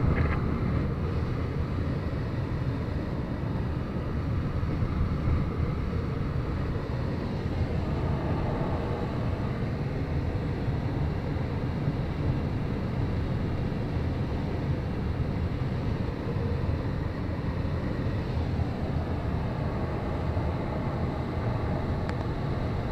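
Steady rush of airflow around a glider's cockpit and canopy in flight, a low, even noise with no engine note.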